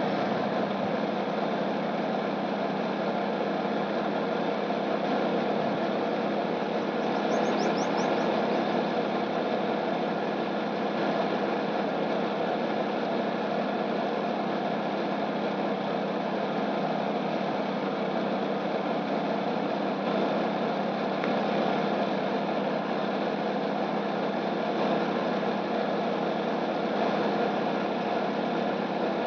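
Steady engine and road noise of a vehicle driving along at an even speed, heard from on board.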